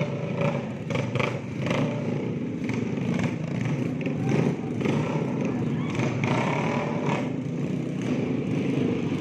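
Modified motor scooter engines running, ridden at low speed, over a crowd's mixed chatter.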